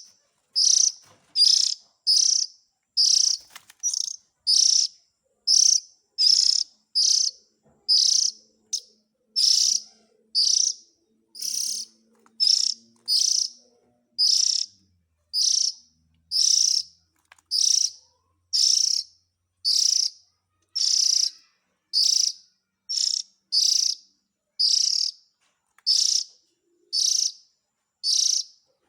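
Oriental magpie-robin giving short, harsh calls, one after another, a little more than once a second, at an even, steady pace.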